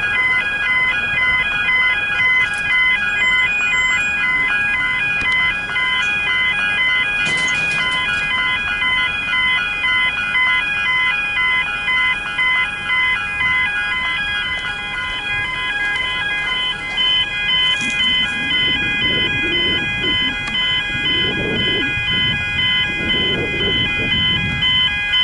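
Level-crossing electronic bell (Barker's Technics e-bell) ringing steadily, a pulsing multi-tone ding about twice a second, while the crossing's red lights flash for an approaching train. A low rumble swells in waves in the last few seconds.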